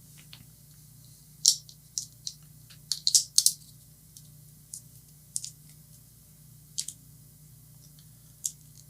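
Small connector parts of a D-tap power cable clicking and tapping as they are handled and fitted together: a cluster of quick clicks about one and a half to three and a half seconds in, then single clicks every second or so. A faint steady low hum sits underneath.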